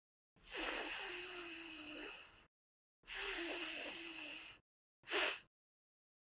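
A voice demonstrating the unvoiced /f/ sound, air hissing between the top teeth and lower lip: two long hisses of about two and one and a half seconds, then a short one.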